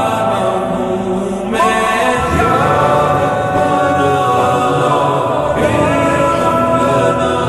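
Slowed-down, reverb-drenched nasheed: sung vocals with layered voices, long held notes that shift pitch a few times.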